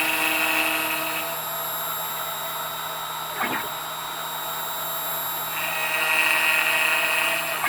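Router spindle on a CNC machine running at speed with a steady whine. Its higher tones fade out from about a second and a half in and come back near the end, with a brief sweep in pitch in between.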